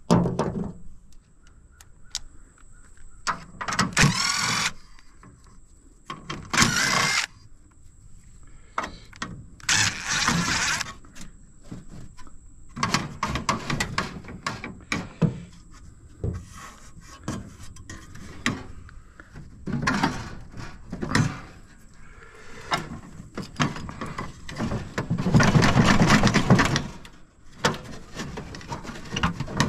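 Metal parts of an air-conditioning unit being worked apart by hand: a string of clanks, knocks and rattles. There are longer scraping bursts about 4, 7 and 10 seconds in, and a louder, longer one near the end.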